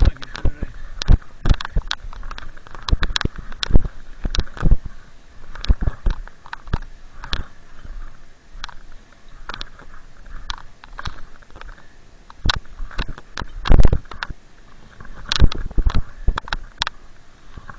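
Snowboard sliding slowly through deep, loose snow: a soft snow hiss with irregular crunches and knocks, one or two a second.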